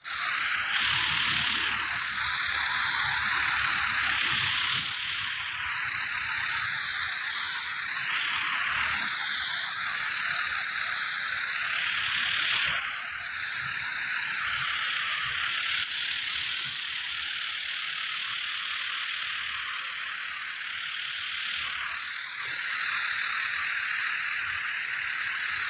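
Sprayer nozzle hissing steadily as it sends out a fine mist of foliar spray over bitter gourd vines, the hiss swelling and dipping every couple of seconds.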